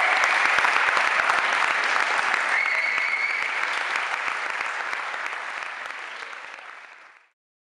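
Audience clapping and applauding, with one short high-pitched call from the crowd about a third of the way in; the applause fades out to silence near the end.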